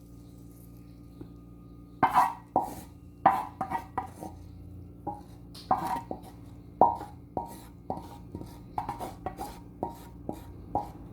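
Irregular sharp knocks and clinks of tableware being handled, about twenty in quick succession starting about two seconds in, over a steady low hum.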